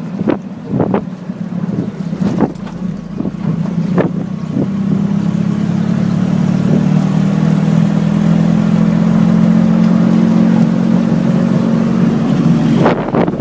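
Wind buffeting the microphone in gusts, then from about four seconds in a steady, low motor hum that cuts off abruptly near the end.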